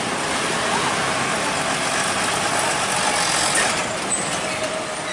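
Heavy box truck's diesel engine running steadily as the truck drives past.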